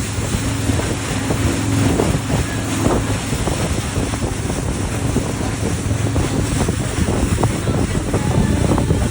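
Speedboat motor running steadily, with wind buffeting the microphone and water rushing past.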